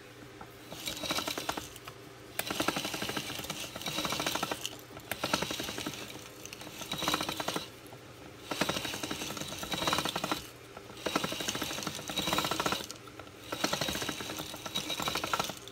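Dough-sheeting machine running, its roller and metal gears turning with a rapid rattle that comes in repeated bursts about every two seconds, over a steady low hum.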